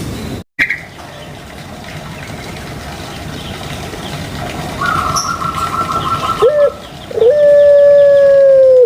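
Puter pelung dove calling: a short rising note, then a long drawn-out coo held on one low pitch that sinks slightly as it goes on. This is the breed's long "kwokkk" song.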